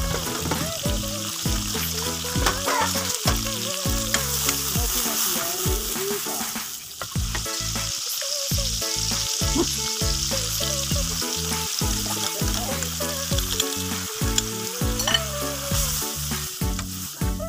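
Blended spice paste sizzling in hot oil in a wok as a wooden spatula stirs it, the sizzle stronger in the second half. Background music with a beat runs underneath.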